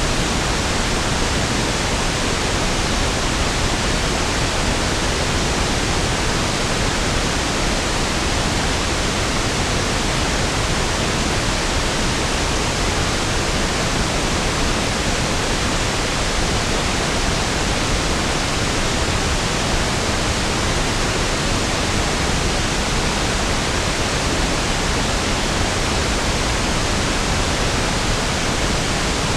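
Pink noise (1/f noise): a steady, even hiss spread across the whole range, with equal energy per octave, so it sounds smoother and deeper than white noise. It does not change.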